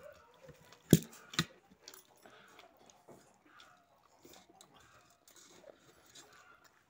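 Faint chewing and mouth sounds of people eating rice by hand, with two sharp knocks close together about a second in.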